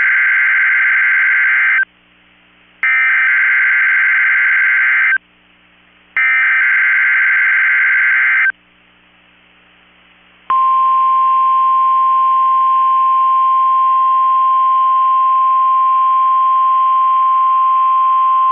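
Three EAS SAME header data bursts from a NOAA Weather Radio station: harsh digital warbling, each about two seconds long with a short pause between. After a gap of about two seconds, the steady 1050 Hz weather radio warning alarm tone starts about ten seconds in and holds, sent here as the weekly test of the alarm.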